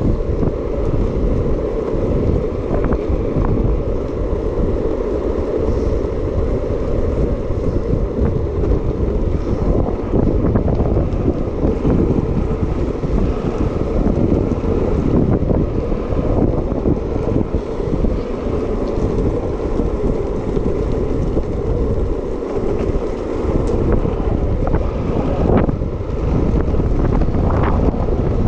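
Wind rushing over an action camera's microphone during a fast downhill longboard run, over the rolling roar of the board's wheels on asphalt. A few brief clicks come near the end.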